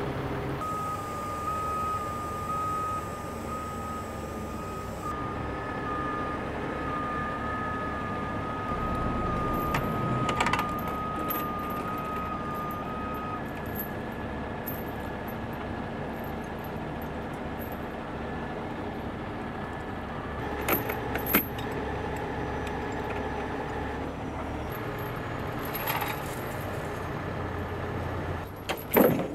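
Heavy diesel equipment running steadily, with repeated beeping through the first half and metal chains clanking and rattling a few times as rigging chains are handled.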